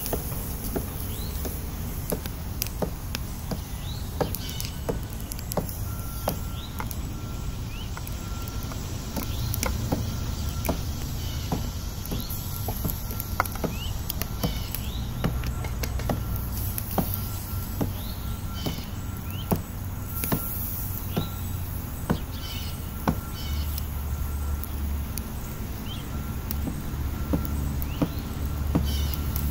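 Outdoor ambience: a steady low rumble under scattered sharp crackles and clicks, with short bird chirps throughout and a faint steady whine from about six seconds in.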